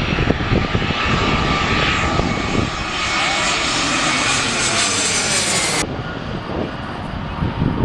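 Airbus A320 jet airliner on landing approach passing low overhead: loud, steady jet engine noise with a whine running through it. About six seconds in the sound cuts off abruptly to quieter, more distant jet noise as the aircraft is heard from far behind.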